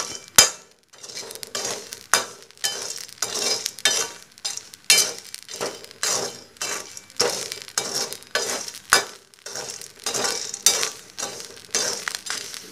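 A perforated metal skimmer scraping and stirring coarse salt and black chickpeas in a hot metal kadhai, in repeated swishing strokes about twice a second. A few sharp pops come through as the roasting chickpeas burst in the hot salt.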